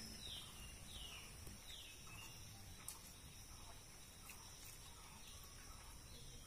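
Faint rural ambience: a bird gives three short falling calls in the first two seconds, over a steady high-pitched insect drone.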